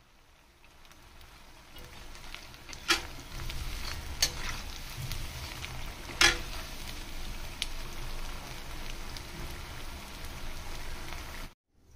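Potato-and-rice pakoras deep-frying in hot oil in a kadhai, a steady sizzle that builds over the first seconds. A metal slotted spoon clinks sharply against the pan three times, loudest about six seconds in.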